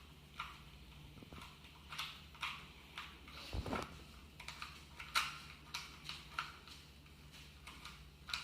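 2x2 Rubik's Cube being scrambled by hand: a quick, irregular run of small plastic clicks and clacks as its faces are turned.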